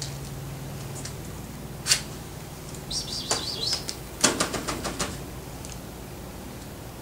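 A hand scratching, tapping and rustling on the newspaper lining a cage floor: a single sharp tap about two seconds in, a short scratchy rustle, then a quick run of about eight scratches and taps near the middle.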